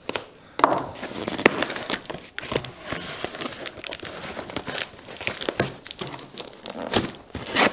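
A cardboard box being cut and worked open: a serrated kitchen knife slitting packing tape, and the cardboard rustling and crinkling as it is handled, with scattered knocks. It starts about half a second in.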